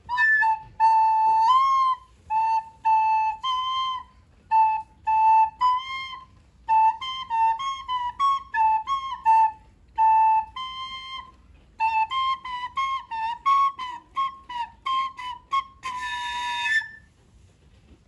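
Plastic soprano recorder playing a simple tune of short, separate notes. It ends on a longer note with a lot of breath noise.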